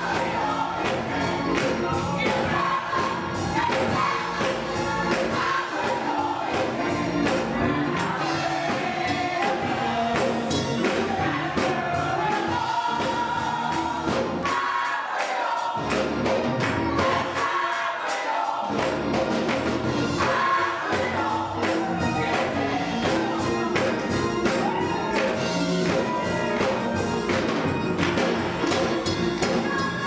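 Gospel choir singing with keyboard accompaniment and a steady beat. About halfway through, the low bass drops out twice, briefly.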